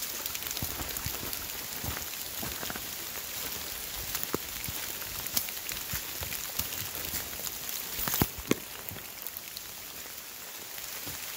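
Steady rain falling in woodland, with many small ticks of drops throughout. Two louder sharp taps come about eight seconds in.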